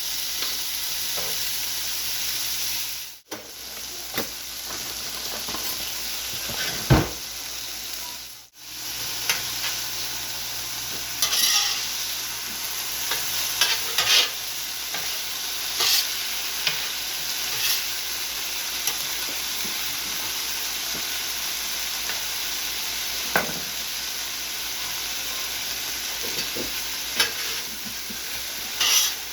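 Food frying in oil on a Steelmade USA steel flat-top griddle, sizzling steadily. Short scrapes and knocks of a utensil come every few seconds. The sound cuts out briefly twice near the start.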